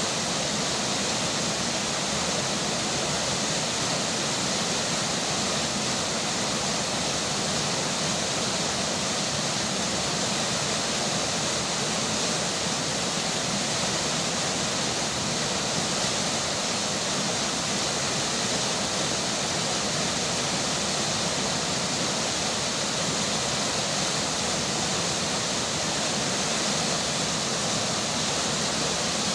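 Steady rush of flowing river water with rainfall, an even, unbroken hiss with no distinct drops or splashes standing out.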